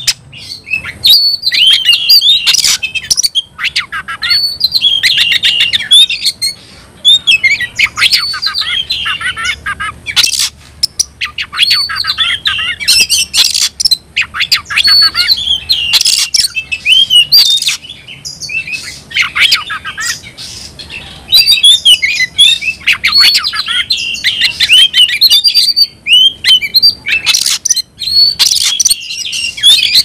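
Oriental magpie-robin (kacer) singing a loud, rapid, varied song of whistled phrases and clicks in bursts of one to three seconds with short breaks: the agitated fighting song that keepers call gacor.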